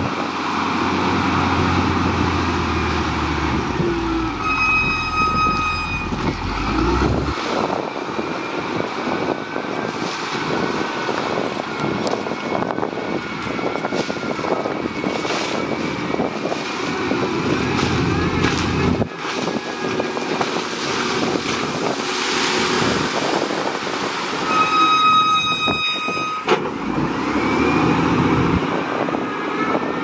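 Wheel loader's diesel engine running under load and changing pitch as the machine pushes and carries sand. A horn sounds twice, a steady blast of about a second and a half each, about five seconds in and again about twenty-five seconds in.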